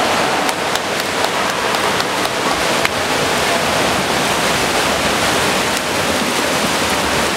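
Continuous rushing splash of many water polo players sprinting freestyle up the pool, with a few sharp clicks in the first three seconds.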